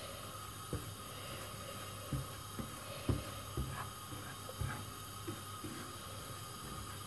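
Silicone spatula stirring and scraping a dry mix of fine semolina, milk powder and coconut as it dry-toasts in a non-stick frying pan, with soft irregular knocks against the pan. A steady faint hum runs underneath.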